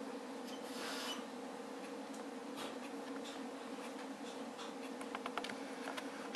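Faint rustling and a few small clicks from wood-shaving bedding as a snake swallows a mouse, over a steady low hum. The soft rustle comes about a second in, and the clicks cluster near the end.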